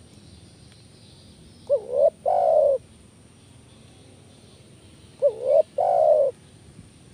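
Spotted dove cooing: two calls about three and a half seconds apart, each two quick hooked notes followed by a longer held coo.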